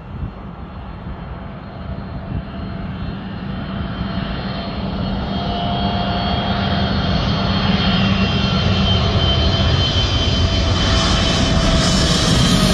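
A twin-engine widebody jet airliner on final approach with its gear down comes in low overhead. It grows steadily louder throughout: a low engine rumble with high, steady whining tones from the engines.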